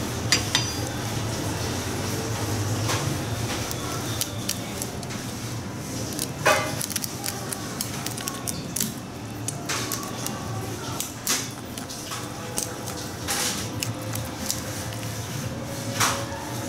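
Chef's knife cutting up a fish on a wooden cutting board, chopping through the belly bones: irregular sharp clicks, crunches and knocks of the blade against bone and board, over a steady low hum.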